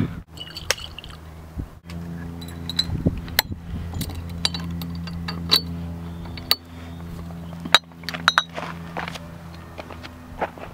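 Glass bottles clinking and the wire swing-top stoppers clicking as they are handled, with many short sharp clinks, over a steady low hum.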